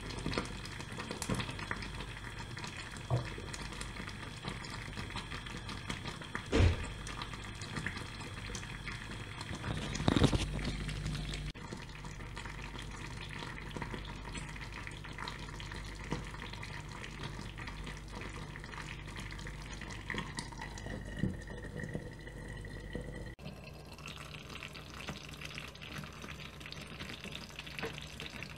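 Thick shiro stew simmering in a clay pot: a steady crackle of small bubbles breaking and popping through the paste. Two louder knocks come partway through, and the bubbling turns quieter near the end.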